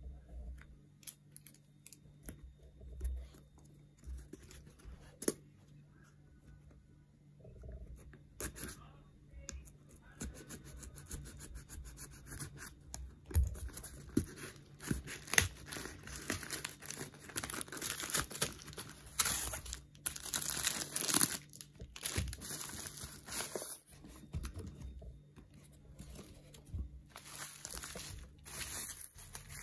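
A parcel being unpacked by hand: bubble wrap crinkling and packaging tearing in irregular rustles and rips, densest through the middle stretch.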